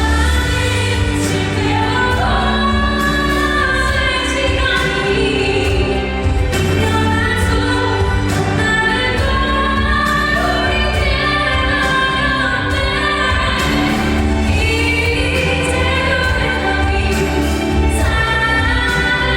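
Live music: a female singer's voice held in long, sustained lines over band accompaniment with a steady bass, joined by choir-like backing vocals.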